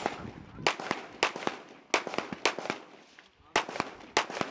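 Series of 9mm pistol shots from an M18 pistol fired on an outdoor range, about seven sharp cracks roughly half a second apart with a short pause past the middle.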